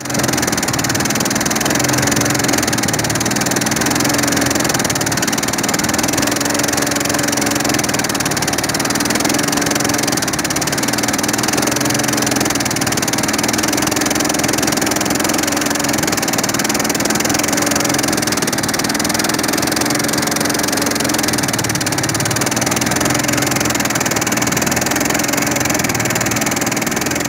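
Engine of a small wooden river boat running steadily while the boat is under way: a constant drone that holds the same level throughout.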